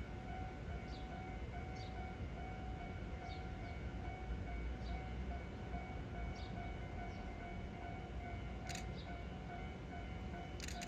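Level-crossing warning bell ringing in an even, repeating pattern, over the low rumble of a JR 105-series electric train passing. There are two sharp clacks near the end.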